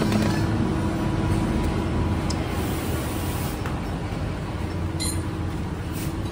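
A steady mechanical hum and rumble with a constant low tone, with a couple of faint clicks about two and five seconds in.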